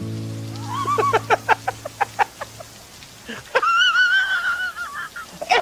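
A quick run of cackling 'ha-ha-ha' laughter, about a dozen short pulses, followed by a long high wavering squeal, over a low held music chord that fades out in the first couple of seconds.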